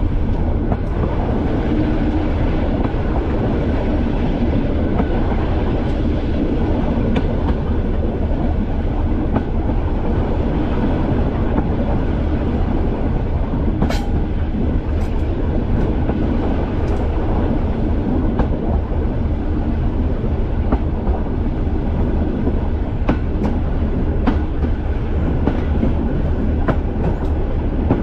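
Class 205 'Thumper' diesel-electric multiple unit under way: the steady drone of its English Electric four-cylinder diesel engine with rail running noise, broken by scattered sharp clicks of the wheels on the track.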